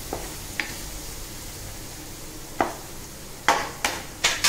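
Diced paneer, capsicum and tomato sizzling with spices in oil in a nonstick pan while a spatula stirs them. There are a few sharp scrapes of the spatula against the pan, three of them close together near the end.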